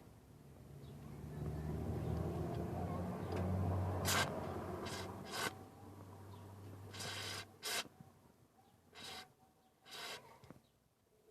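Several seconds of low rubbing and scraping, then short hissing bursts of aerosol penetrating oil sprayed into a steering tie-rod end through its hole. The joint is being oiled to test whether it causes the steering squeak.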